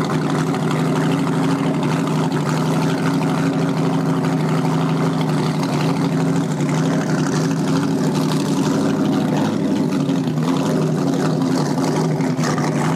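Big exposed inboard engine of a small flat-bottom speedboat running steadily at low speed, a deep, even engine note with no revving.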